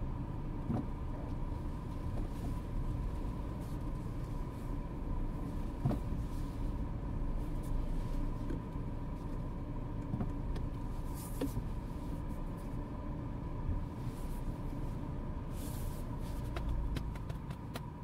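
Mini Clubman cabin sound while driving: a steady low engine and road rumble with a thin steady tone above it. Scattered clicks and knocks come through, with a cluster of them near the end.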